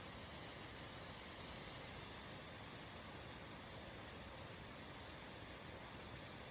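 Steady hiss of rushing water from a waterfall, even and unbroken, with its sound strongest in a high, bright band.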